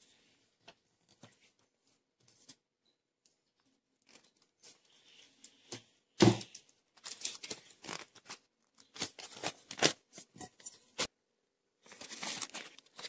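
Scissors snipping through paper in a quick run of short, crisp cuts, with paper rustling, as a paper liner for a cake tin is cut out. A single thump comes about six seconds in, and before it there are only a few faint handling ticks.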